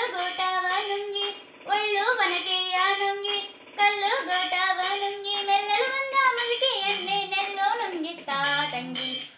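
A girl singing a song into a handheld microphone, in sung phrases with two short breaks, about a second and a half and three and a half seconds in.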